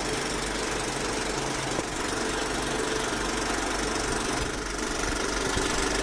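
Old film projector running: a steady mechanical whir and clatter over a low hum.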